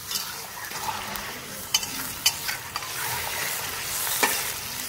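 Chicken pieces sizzling as they fry in hot oil in an iron karahi, turned with a metal spatula that scrapes and knocks against the pan a few times. The chicken is in its first browning, being fried until it changes colour.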